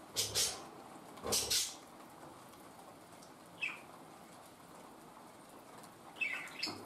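Steady hiss of rain, broken near the start by two brief rustling bursts about a second apart, with a bird's short falling chirp twice later on.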